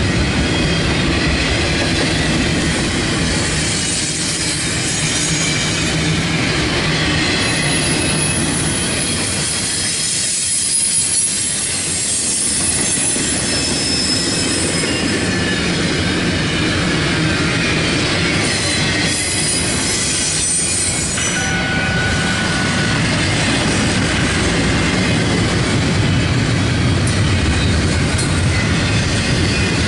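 Double-stack intermodal container train rolling past: a steady rumble and clatter of steel wheels on rail, with a few brief high-pitched wheel squeals along the way.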